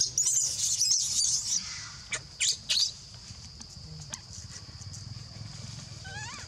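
Newborn macaque squeaking: a run of high, wavering squeals in the first second and a half, a few short chirps about two to three seconds in, and a rising call near the end.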